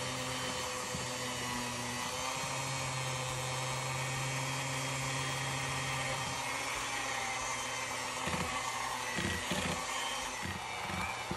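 Electric hand mixer running steadily, its beaters working thick cookie dough as flour is added.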